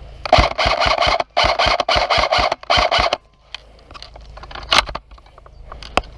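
Airsoft gun firing three rapid bursts in quick succession, each a fast run of sharp shots over a buzzing mechanism, then a couple of single sharp cracks.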